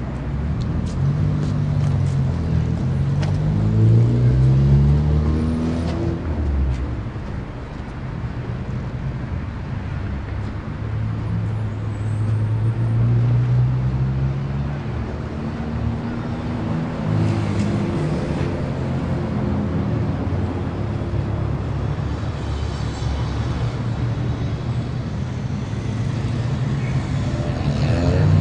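Street traffic: motor vehicles driving past, their engines rising in pitch as they pull away, several times over a steady traffic hum.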